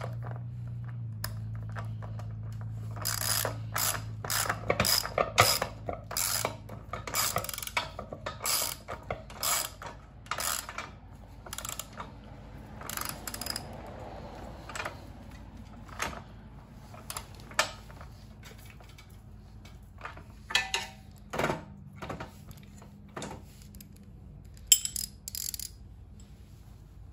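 Socket ratchet wrench clicking in short runs of strokes as it tightens the wheel nut on a push reel mower, stopping shortly before the end.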